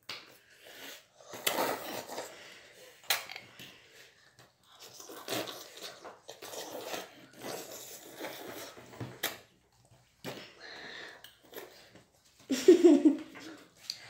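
Two children slurping and chewing instant noodles in a race, with forks clicking against clay bowls now and then. A short loud burst of a child's voice comes near the end.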